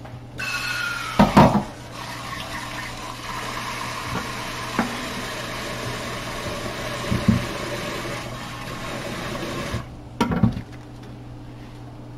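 Kitchen tap running into the sink for about nine seconds, with a few knocks and clatters at the sink; the loudest clatters come just after the water starts and just after it stops.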